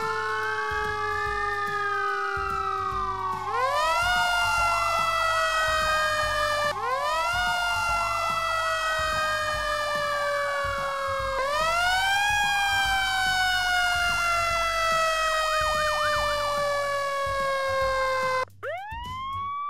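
Fire engine sirens on the move, several overlapping: a wail sweeping slowly up and down, and a siren that climbs quickly and then falls slowly, repeating about every three to four seconds, with short bursts of fast yelping. Near the end the sound cuts off abruptly and another siren winds up.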